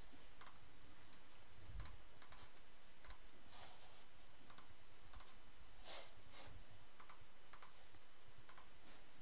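Computer mouse buttons clicking: scattered single clicks and quick double clicks, over a faint steady background hiss.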